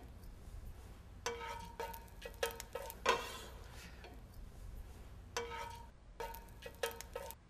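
Metal slotted spatula scraping and tapping against a stainless steel frying pan as garlic paste is stirred through oil, the pan ringing briefly with each stroke. The strokes come in irregular clusters, the loudest about three seconds in.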